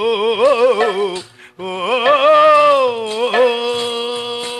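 A singer in a Telugu burrakatha folk ballad holds long, ornamented notes with wavering pitch over a steady drone. The voice breaks off briefly about a second in, then sustains one long note that swells and then falls away.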